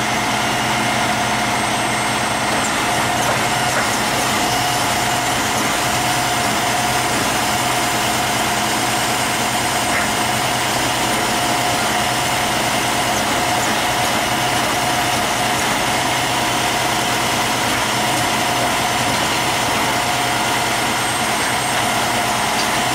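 A heavy diesel engine idling steadily, with a constant hum on top and no change in speed.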